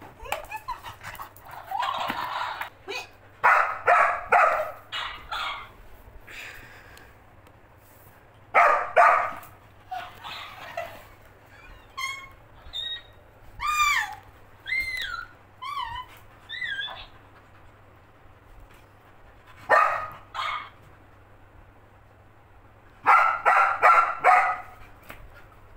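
Labrador barking in short volleys at a talking cactus toy, with a run of high whines that rise and fall about halfway through.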